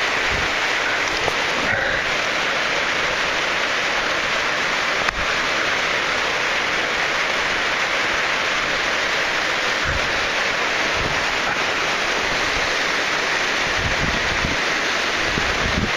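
Steady rushing of falling water and spray from a waterfall in a pothole shaft, with a few dull low thumps.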